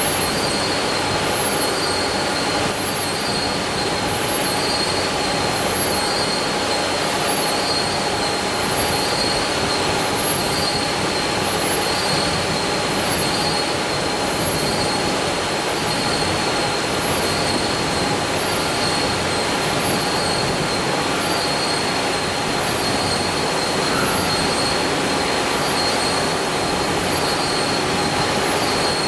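Steel coil slitting machine running steadily: a loud, even metallic noise with a high whine, and a very high tone that pulses about once a second.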